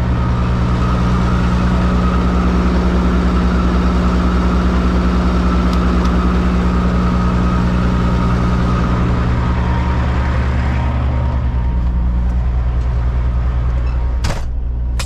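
Peterbilt 379 semi truck's diesel engine idling steadily, heard from inside the cab. A single sharp click sounds near the end.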